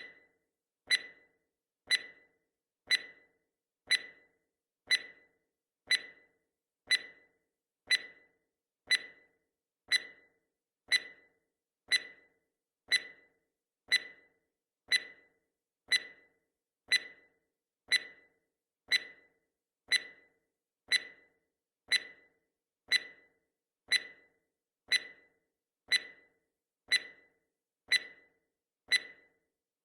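Clock-tick sound effect of a countdown timer: one short, sharp tick every second, each tick alike.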